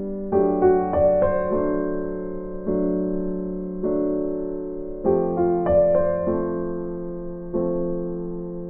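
Background music: a soft electric piano playing slow, repeated chords that decay between strikes.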